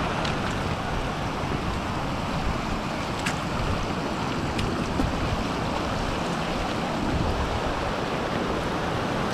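Heavy rain falling steadily, with wind buffeting the microphone and a few sharp ticks.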